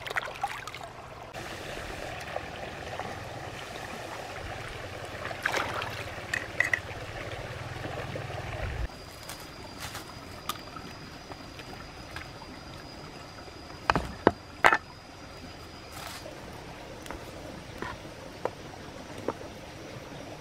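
Shallow stream water trickling and splashing, cut off sharply about nine seconds in. After it comes a quieter outdoor background with a thin steady high tone and three sharp knocks close together about two-thirds of the way through.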